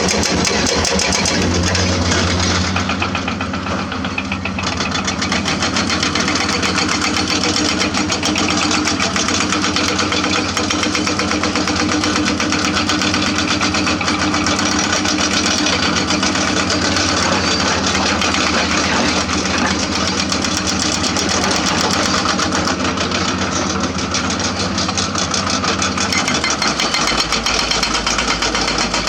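Diesel engine of a hydraulic excavator running steadily, its low note shifting about 26 seconds in.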